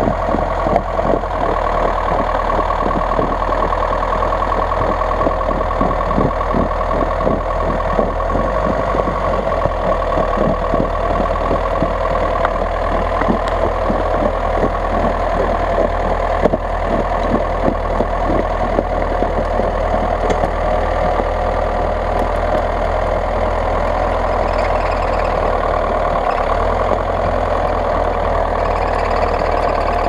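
GAZ-66 truck engine idling steadily.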